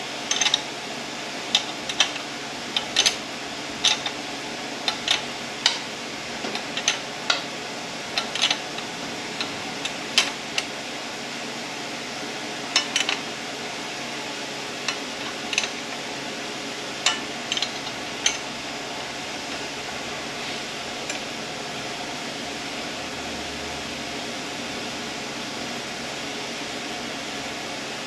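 Irregular light metallic clinks and taps of tools and metal transmission parts being handled, frequent for the first two-thirds and then dying away, over a steady fan-like hum.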